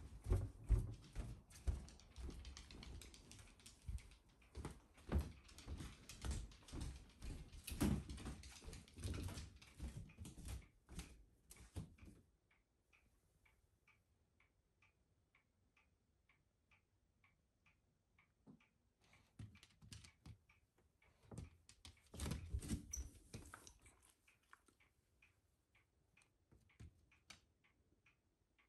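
Footsteps and a dog's paws clattering unevenly across the floors as the dog is herded back to the kitchen, with bumps of movement close to the microphone. After about twelve seconds this gives way to a faint, steady ticking, about three ticks a second, broken by another burst of shuffling and bumps a little past the middle.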